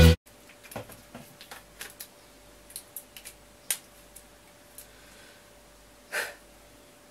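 Music cuts off abruptly at the start. Then come faint, scattered small clicks and taps from a pen being handled at a table. A little after six seconds in there is one short, sharp breath.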